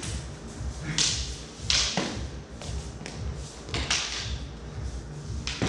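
Training swords clacking together in a sword-and-dagger bout: a handful of sharp, irregularly spaced knocks as the blades meet.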